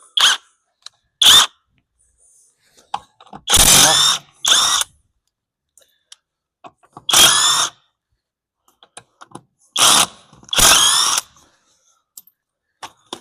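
Electric power tool, drill-like, run in about seven short bursts with pauses between, spinning out bolts to take a brake caliper off a car's front wheel hub.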